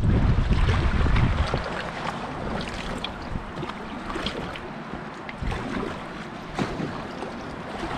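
River water rushing and splashing around an inflatable kayak as a double-bladed paddle dips in stroke after stroke, with wind buffeting the microphone, heaviest in the first second or two.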